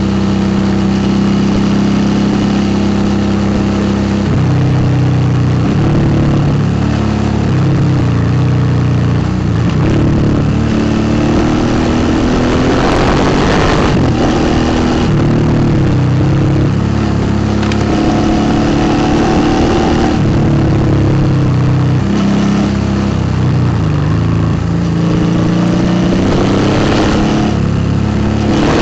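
2008 Suzuki V-Strom 650's 645 cc V-twin engine, fitted with a Delkevic aftermarket exhaust, running while the bike is ridden. Its pitch steps up and down several times with gear changes and throttle, over steady wind and road noise.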